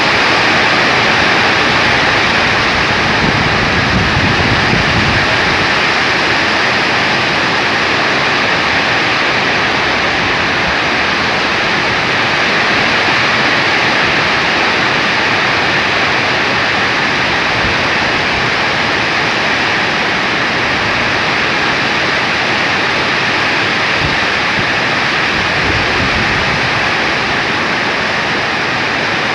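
Heavy tropical rain pouring down in a loud, steady hiss, with low rumbles of wind gusting a few seconds in and again near the end.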